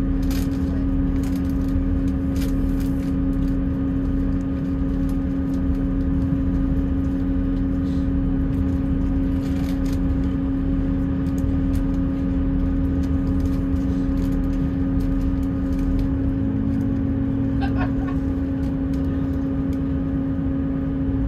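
Diesel multiple unit heard from inside the carriage: the underfloor diesel engine and running gear give a steady hum over a deep rumble. The note shifts about two-thirds of the way through.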